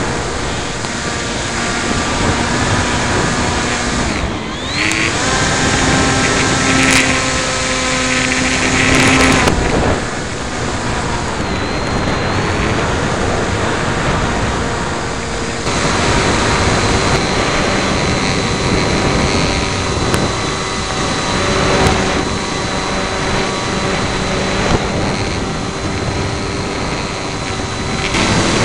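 Electric motor and propeller of an EPP foam FPV plane whining in flight, the pitch stepping up and down every few seconds with the throttle, under heavy wind noise on the microphone.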